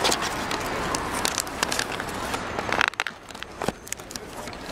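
Close handling noise: paper and a cardboard box rustling and crackling against the microphone, with many quick clicks and taps and a louder rustle near the middle.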